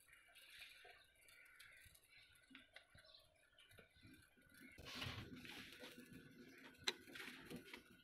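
Near silence: faint background, slightly louder handling noise in the second half, and one sharp click about seven seconds in.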